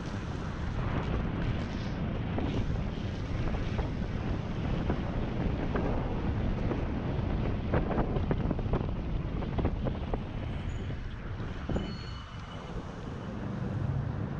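Wind buffeting the microphone of a handlebar-mounted camera on a moving electric scooter, over a steady low road rumble with scattered knocks from bumps in the road surface.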